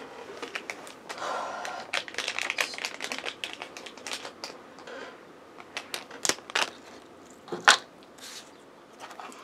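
Crinkly plastic toy packaging being handled and opened: irregular rustling and sharp clicks, with one louder snap near the end.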